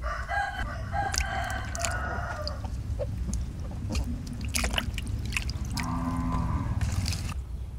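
A rooster crowing twice: one long crow at the start and another near the end. Between the crows there is water splashing and dripping as a bell pepper is rubbed and rinsed in a basin.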